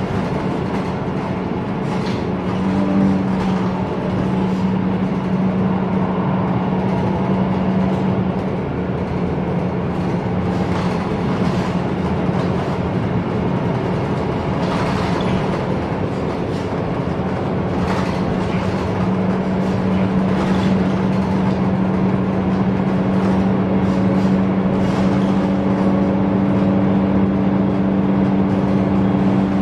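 Interior sound of a MAN NL323F single-deck bus cruising: a steady low drone from the diesel engine and drivetrain over road and tyre noise, growing slightly louder in the second half. Brief knocks and rattles from the cabin come now and then.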